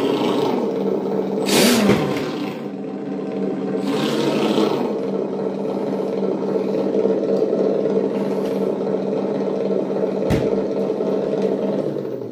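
Redcat Gen8 RC crawler's electric motor and geared drivetrain whining steadily as it drives, the freshly repaired portal axle running normally. A few brief scrapes, and a single sharp click about ten seconds in.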